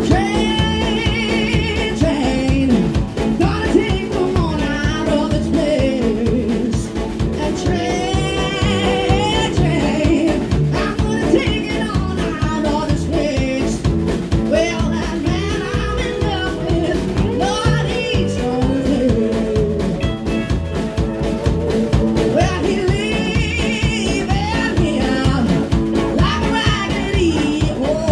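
A live band playing a song: a woman sings lead with vibrato over electric guitar and a drum kit keeping a steady beat.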